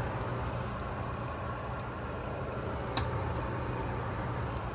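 A steady low hum, with one sharp click of a utensil against the baking pan about three seconds in and a few faint ticks, as ground beef is spread in the pan.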